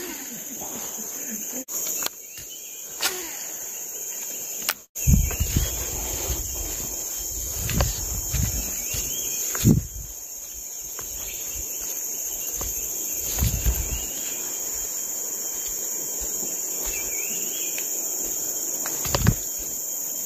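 Steady chorus of forest insects, a continuous high-pitched buzz. From about five seconds in, low rumbles and thumps of handling or wind on the microphone come and go, with scattered sharp clicks.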